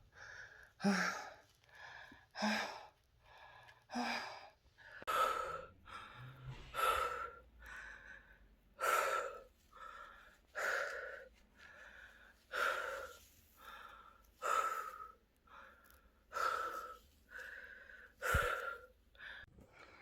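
A person breathing heavily and audibly, a breath every second or two, settling into a slower, even rhythm about a quarter of the way in.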